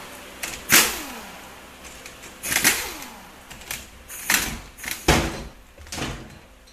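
Pistol-grip air impact wrench fired in about five short bursts, each trailing off in a falling whine as the tool spins down, running out the bolts that hold a 4R75E transmission's front pump together.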